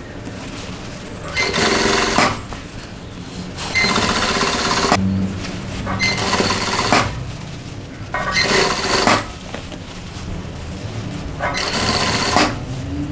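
Industrial single-needle sewing machine stitching in short bursts of about a second, five times, stopping and starting between them as the fabric is guided.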